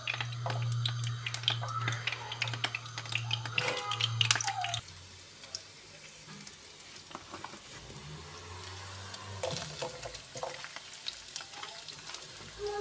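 Hot oil crackling and sizzling in a frying pan over a steady low hum; the hum stops suddenly about five seconds in. After that there is a quieter sizzle with scattered light clicks.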